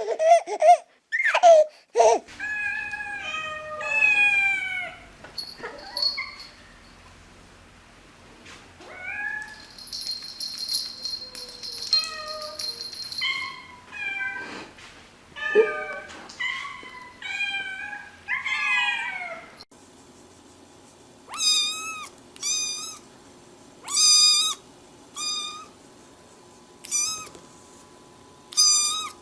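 Domestic cats meowing, many separate calls that rise and fall in pitch. Later on, one cat gives a steady series of short, high meows, about one a second.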